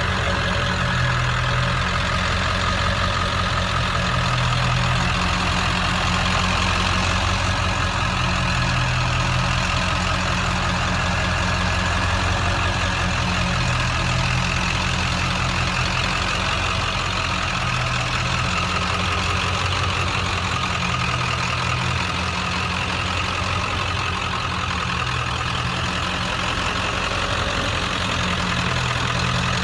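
1997 Ford F-250's 7.3 L Power Stroke turbo-diesel V8 idling steadily.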